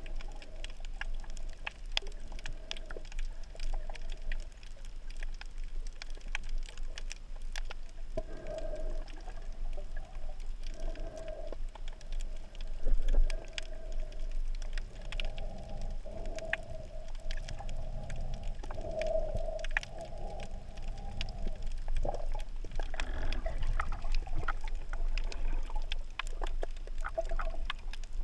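Underwater sound picked up by the camera in its waterproof housing: a muffled low rumble of water with a faint wavering hum that comes and goes, scattered sharp clicks, and one brief louder low thump about thirteen seconds in.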